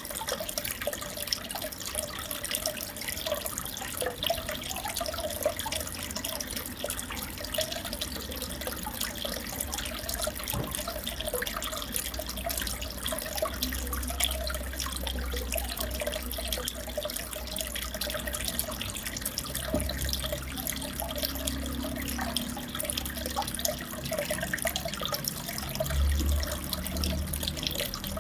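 Steady trickling and bubbling of aquarium water, with a low hum underneath that swells now and then.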